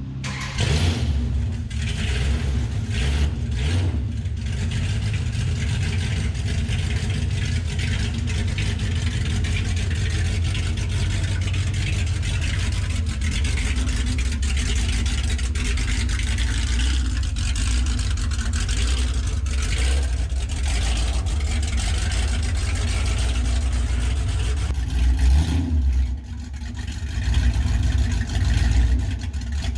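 1970 Plymouth Superbird's 426 Hemi V8 with open headers firing up and running at a steady loud idle. Near the end it dips briefly, then is revved in a few uneven surges.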